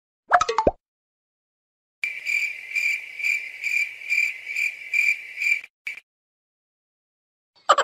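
Cricket chirping sound effect: a steady high trill pulsing about three times a second for nearly four seconds. A short sound effect comes just before it, and a fast run of rapid clicks starts near the end.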